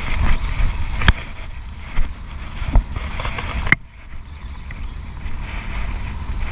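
Low, uneven wind rumble on the camera microphone, with a few sharp clicks from the baitcasting reel being handled. The loudest click comes a little past halfway, and the rumble briefly drops right after it.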